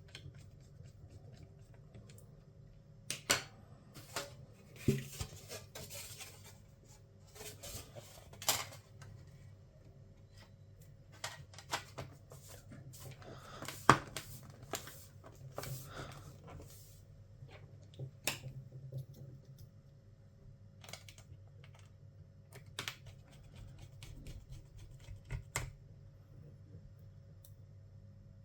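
Irregular clicks, taps and light rustling of small tools and laptop parts being handled, over a faint steady hum; the sharpest click comes about halfway through.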